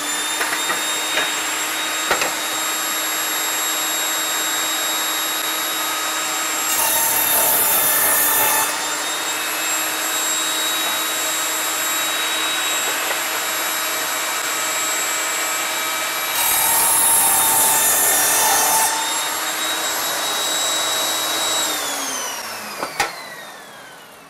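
Evolution Rage 5-S table saw running with a steady whine and making two 45-degree miter crosscuts through 1x2 wood, about 7 and 16 seconds in, each cut a louder, noisier stretch of about two seconds. Near the end the saw is switched off and its whine falls in pitch as the blade spins down.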